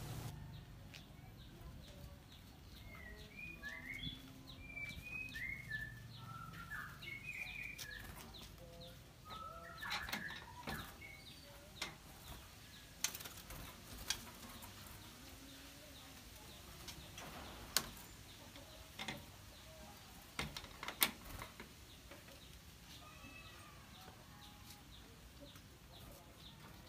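Short bird chirps, many quick rising and falling notes, over the first ten seconds or so. Then a scattering of sharp knocks and clicks as a bamboo bird cage is carried, hung and handled at a wooden breeding enclosure.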